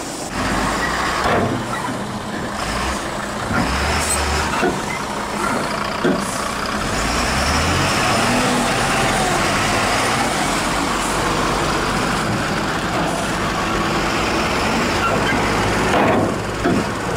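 Tipper truck's diesel engine running while its raised bed dumps a load of soil, with a few sharp clunks from the bed early on.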